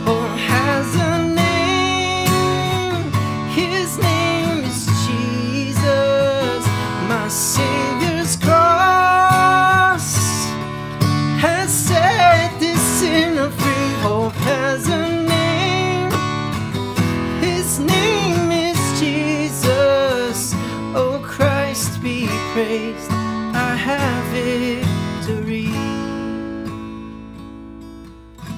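Solo acoustic guitar playing an instrumental break, strummed and picked chords. A little before the end a chord is left to ring and fades away.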